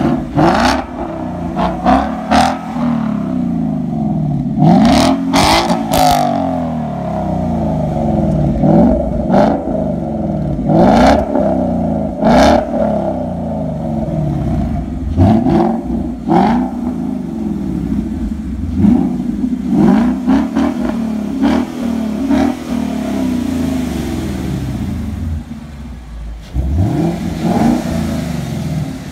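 2015 Ford Mustang GT's 5.0-litre V8 through a Ford Racing exhaust, blipped from idle over and over: each rev climbs sharply and drops straight back, a dozen or more times. Near the end it settles to a steadier idle before one last rev.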